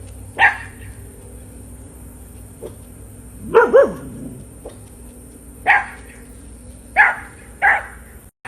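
Australian Shepherd barking in short single barks spaced irregularly, about six in all, with a quick double bark about three and a half seconds in.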